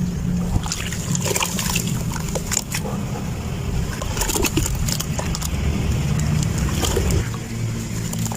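Dry sand-cement being crushed and crumbled, giving scattered crackles and small crunches over a steady low rumble.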